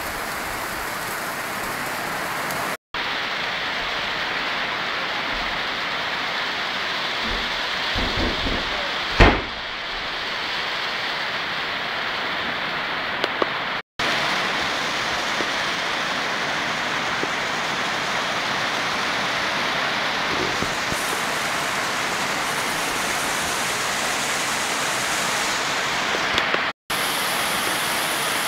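Heavy rain pouring steadily in a tropical storm. About nine seconds in comes one sudden loud thump. The sound drops out completely for an instant three times, at cuts in the recording.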